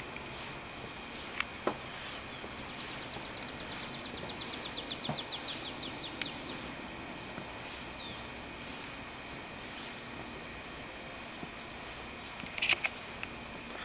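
Steady high-pitched drone of insects, with a rapid ticking trill a few seconds in and a few short chirps, the loudest near the end.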